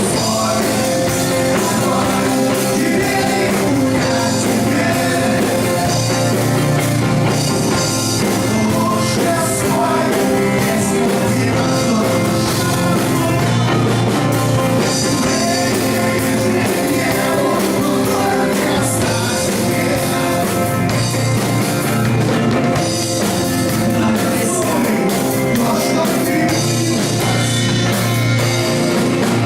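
A rock band playing live: a sustained instrumental passage with electric guitar and drum kit, and no clear lead vocal.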